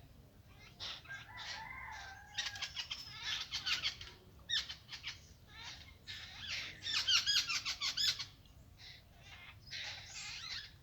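Birds calling in bursts of rapid, high, squeaky chirps, the busiest about two to four seconds in and again around seven seconds, with short lulls between.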